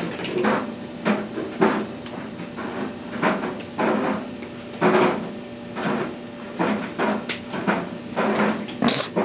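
Clothes dryer running, a steady hum with irregular knocks and thumps from its tumbling drum, about one or two a second.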